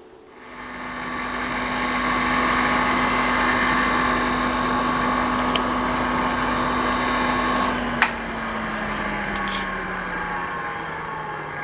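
Electric motor and grinding wheel of a homemade surface grinder: switched on and running up to speed over about two seconds, then running steadily with a steady whine. About eight seconds in, a sharp click, and the whine falls slowly in pitch as the wheel spins down.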